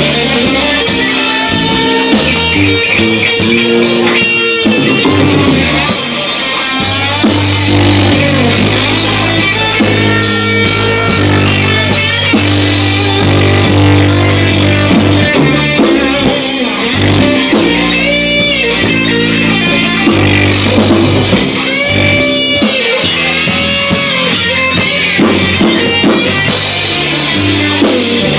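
Live rock band playing: electric guitar over bass guitar and a drum kit.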